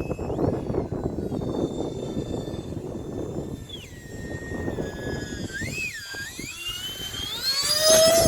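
Whine of a UMX A-10 model's electric ducted fans in flight, changing pitch with the throttle: it steps up about half a second in, drops a few seconds in, then climbs steadily and grows loudest near the end. Wind rumbles on the microphone underneath.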